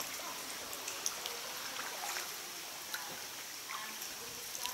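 Sea water trickling and lapping inside a sea cave, with a steady hiss and scattered small drips and splashes.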